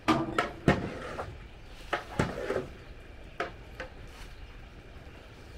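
Cookware being handled: a series of sharp knocks and clanks, several close together in the first second or so, then a few more spaced out, before it settles to a low background.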